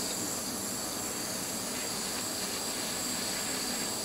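Small handheld gas torch hissing steadily, its blue flame preheating stainless steel handles for soldering.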